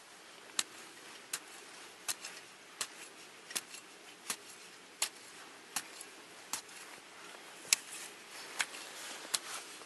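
Long-handled garden hoe chopping into soil in a steady rhythm: sharp strikes about every three-quarters of a second, over a faint steady hiss.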